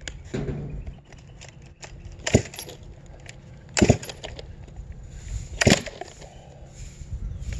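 Three sharp knocks, about two and a half, four and six seconds in, over a low steady rumble.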